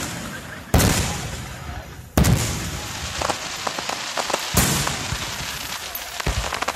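Aerial fireworks shells bursting: four loud booms about a second and a half apart, each with a long fading tail, and a spell of crackling in the middle.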